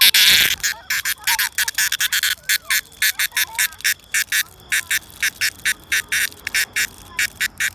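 Cicada calling in a fast run of sharp, hissing pulses, about five or six a second.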